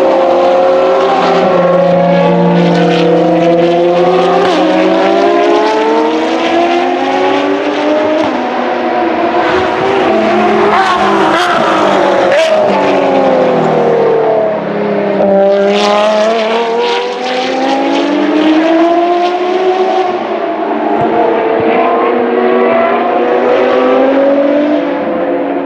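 Ferrari FXX-K track cars with 6.3-litre V12 engines revving up and down through the gears, their engine notes overlapping as they rise and fall. Sharp crackles sound in clusters around the middle and again a little later.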